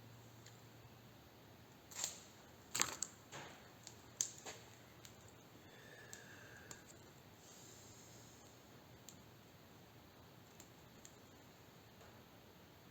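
A few light clicks and knocks from handling tools and small workpieces on a bench, bunched between about two and five seconds in, then only faint scattered ticks.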